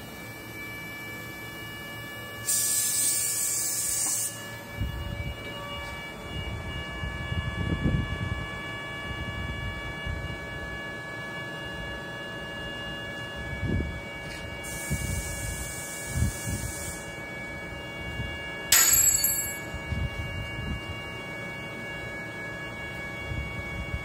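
Steady machine hum with several high steady tones from the vacuum-pump and leak-detector setup. Twice, a hiss of about two seconds from helium sprayed onto the vacuum chamber's seams to find a leak. A sharp click a little before the end.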